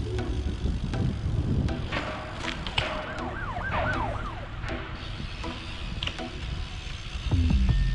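Emergency-vehicle siren yelping, about four quick rise-and-fall sweeps in a little over a second around the middle, over a steady low rumble of street and wind noise.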